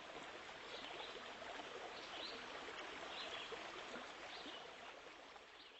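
Faint nature ambience: a steady rush of flowing water with short bird chirps about once a second, fading out near the end.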